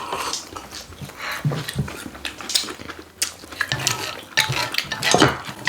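Eating sounds: people chewing and slurping food, with irregular wet smacks and light clicks of cutlery.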